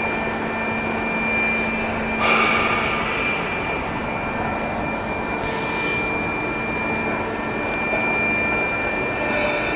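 Steady machinery noise of a steel pipe induction heating and quenching line, with a constant high whine and a low hum. A brief louder surge comes a couple of seconds in, and a short hiss about halfway.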